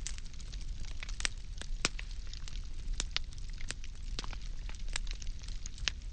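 Firewood burning in a steady fire: irregular sharp crackles and pops, several a second, over a low steady rumble of the flames.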